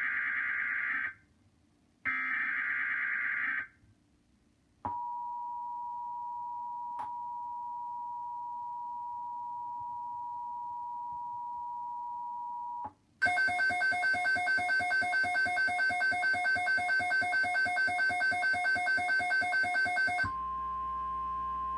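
Emergency Alert System activation: the last two of the three SAME header data bursts, then the steady two-tone EAS attention signal for about eight seconds. It is followed by the louder, fast-pulsing alarm of a Midland WR-120 weather radio, beeping about five times a second for some seven seconds, which has leaked into the broadcast by mistake. Near the end comes a steady single alert tone over a low hum.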